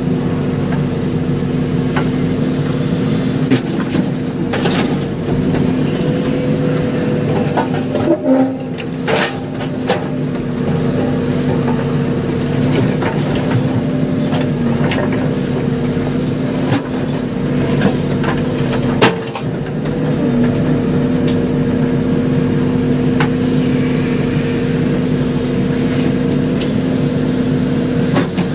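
JCB backhoe loader's diesel engine running steadily, heard from inside its cab, with a continuous drone. A few sharp knocks come about eight to ten seconds in and again near the middle as the boom and bucket work.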